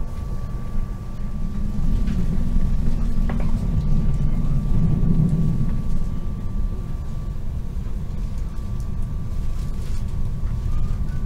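Interior running noise of a Stadler KISS double-deck electric train under way: a steady low rumble, a little louder about halfway through, with a faint thin steady tone above it.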